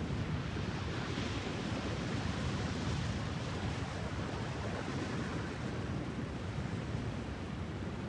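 Distant ocean surf: a steady wash of breaking waves over a deep, low rumble, the hiss of the breakers swelling a little about a second in.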